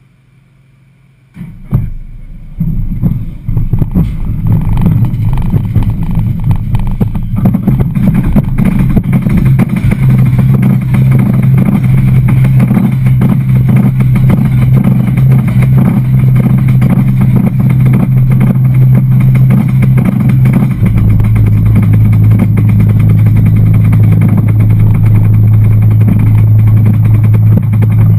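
Steel roller coaster train pulling out of the station and climbing the chain lift hill: a loud, rapid clatter of chain and anti-rollback clicks over a steady low drone from the lift. It starts suddenly about a second and a half in, and the drone drops slightly in pitch about two-thirds of the way through.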